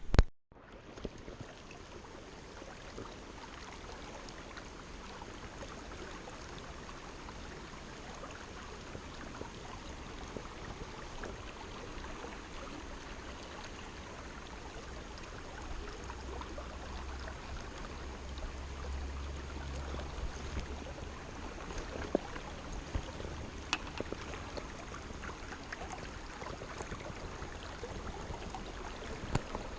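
River water running steadily over shallows, an even rushing sound with a few faint knocks.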